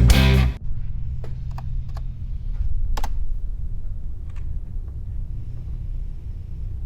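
Rock music cuts off about half a second in, leaving a steady low hum with a few scattered, sharp clicks like keys or buttons being pressed.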